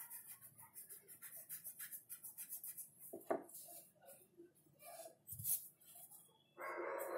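Pencil scratching on drawing paper in quick short strokes. A dog barks near the end.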